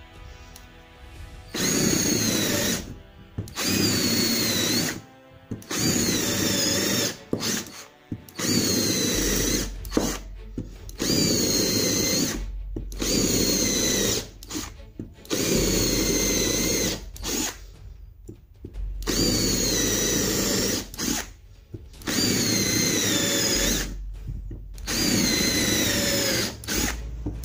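12 V NRT Pro 330 cordless drill boring holes into a wooden block with a 10 mm bit, in about ten short runs of a second or two each with brief pauses between. The motor's high whine wavers in pitch as the bit bites into the wood.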